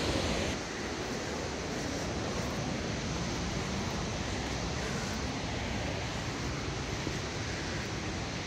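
Steady rushing roar of a large muddy waterfall, dropping a little in level about half a second in, then holding even.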